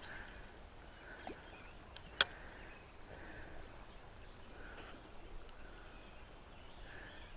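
Quiet riverside ambience with faint, repeated animal calls about once a second, and one sharp click about two seconds in.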